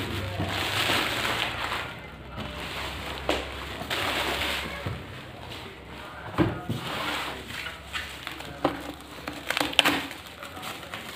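Bubble wrap and plastic sheeting crinkling as a cardboard PC-case box is handled and unwrapped, with a few sharp knocks and clicks against the box in the second half.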